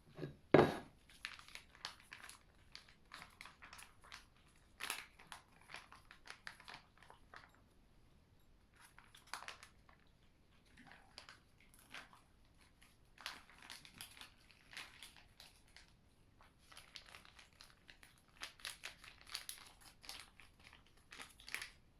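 A cat crunching dry cat food, in irregular clusters of short crackly crunches with brief pauses. There is a sharp knock about half a second in.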